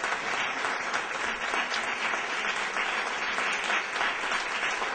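An audience applauding steadily, a dense patter of many hands clapping, at the close of a lecture.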